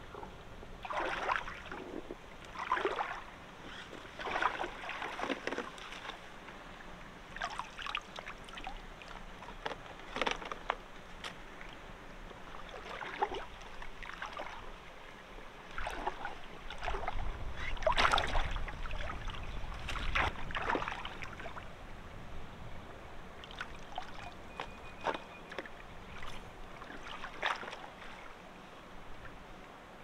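Shallow water sloshing and splashing in irregular bursts, every second or few, as a person wades and feels along the bottom with her hands. A low rumble comes in around the middle.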